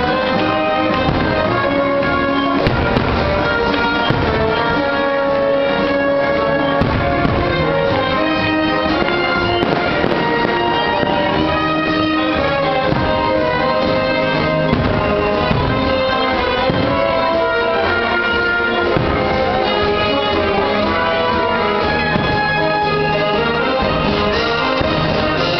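Loud show music with long sustained notes, with fireworks shells bursting again and again through it.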